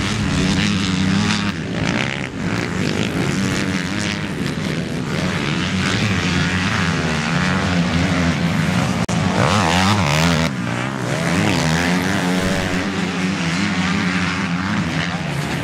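Motocross dirt bike engines revving hard as riders pass on the track, the pitch rising and falling as they throttle on and off.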